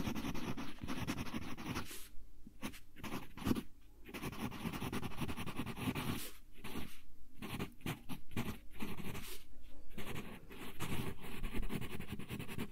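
Wooden graphite pencil writing by hand on lined paper, close up: runs of scratchy strokes with short pauses between words.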